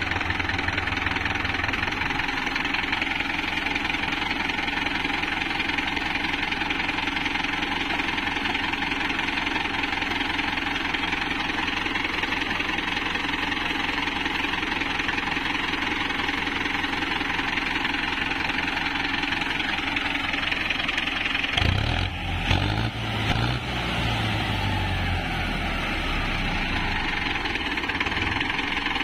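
Tractor diesel engine running steadily, its radiator fan drawing air through a radiator just cleared of packed straw that had made the engine overheat. About two-thirds of the way through, a few seconds of deeper rumbling with some knocks.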